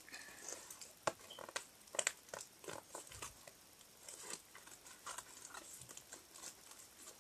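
Packaging being handled as a parcel is opened: soft, scattered rustles, crinkles and light clicks of paper and plastic wrapping.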